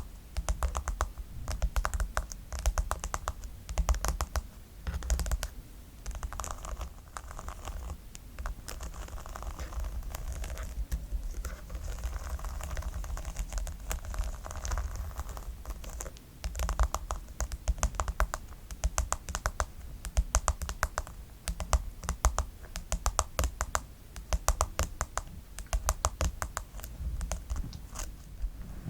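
Fast, crisp tapping on a brush, in quick flurries of clicks with short pauses between them.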